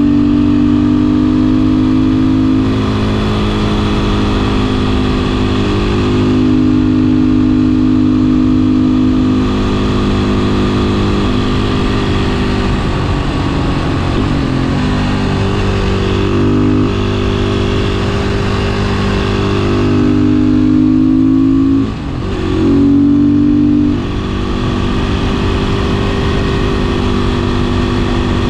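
Beta 500 RS supermoto's single-cylinder four-stroke engine running while riding. The engine note holds steady speeds and steps up and down with throttle changes, and drops away and comes back in the middle. About three quarters of the way through it cuts out briefly, like a gear change.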